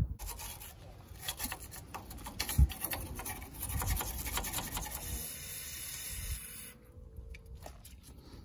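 Wire brush scrubbing rusty steel suspension nuts and the strut clamp collar, a rapid scratchy scraping in quick irregular strokes that dies down about seven seconds in, leaving a few light clicks.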